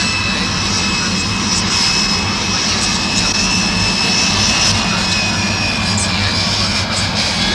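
Jet airliner engines running: a steady rushing noise with high whining tones that sink slightly in pitch.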